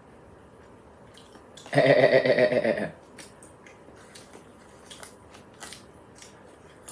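A man's voice gives one loud drawn-out wordless sound about two seconds in, lasting about a second. After it come scattered faint clicks of chopsticks and mouth sounds as he eats.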